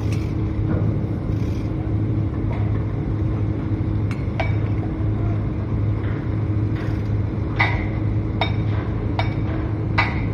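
Steady low machinery hum with a constant tone, typical of an engine or generator running at a construction site. Sharp clinks twice about four seconds in and several more near the end.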